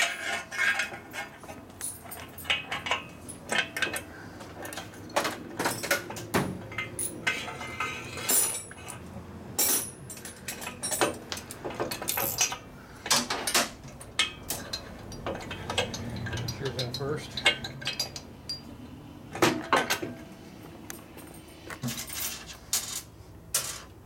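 Irregular metallic clinks, clatters and knocks of hand tools and parts, as an exhaust pipe is worked into place on a motorcycle engine.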